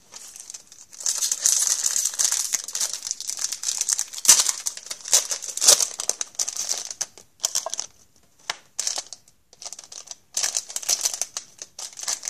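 Clear plastic crinkling as it is handled, in a long stretch of scratchy rustling that starts about a second in. Short scattered crackles follow, then another run of crinkling near the end.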